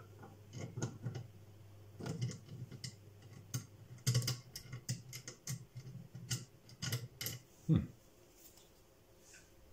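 Irregular small clicks and taps of a screwdriver and terminal screw against the plastic terminal block of a cooker connection unit as a screw is put back into its terminal. A single louder knock comes near the end.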